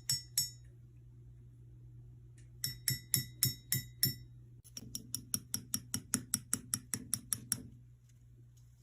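Quick runs of sharp taps on something that rings briefly, about five taps a second, in three spells with short gaps between, over a low steady hum.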